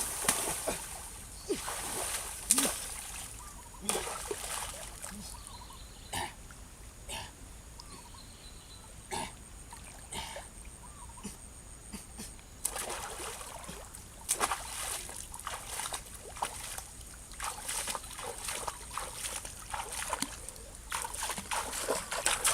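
Water splashing and sloshing in irregular bursts, with scattered sharp splashes and knocks; busier about halfway through and again near the end.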